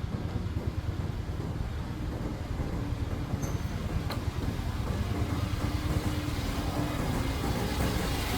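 A motor vehicle running with a steady low rumble that grows slowly louder toward the end.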